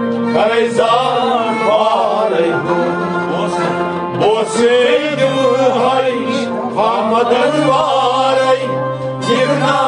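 Kashmiri kalam, a devotional folk song: a male voice with instrumental accompaniment, its melody rising and falling over held low notes.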